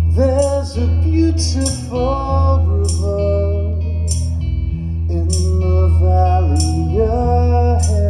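Live band in an instrumental break: a saxophone plays a gliding, bending melody over a steady bass and sustained accompaniment, with a light percussion tap about once a second.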